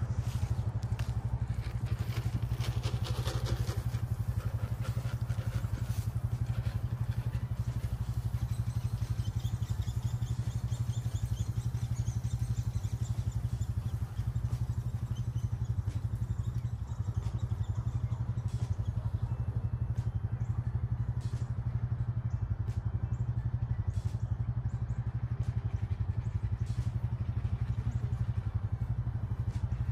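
ATV engine idling steadily, a low even hum that does not change.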